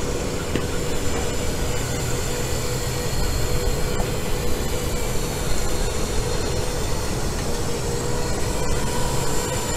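FPV quadcopter's motors and propellers whining steadily as it flies slowly near the ground, one constant pitch over a low rumbling hiss.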